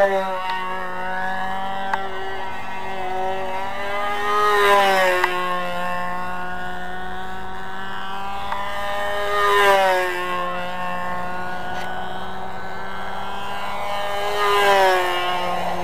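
Evolution .36 two-stroke glow engine of a control-line biplane running steadily as the plane flies circles on its lines. The engine note gets louder and rises then drops in pitch each time the plane sweeps past, three times, about five seconds apart.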